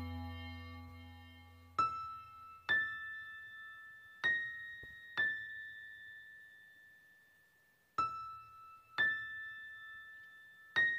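Sparse, eerie background music. A low drone fades away, then single bell-like keyboard notes are struck seven times, loosely in pairs, each ringing out slowly; a lower note is followed by a higher one.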